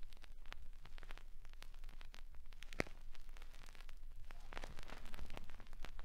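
Record surface noise from a played flexi-disc after the program has ended: scattered clicks and pops over a faint hiss and a low steady hum.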